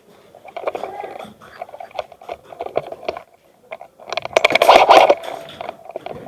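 Garbled, distorted audio from a cheap action camera's microphone: ragged crackling and clicking noise, with a loud harsh burst about four seconds in lasting around a second.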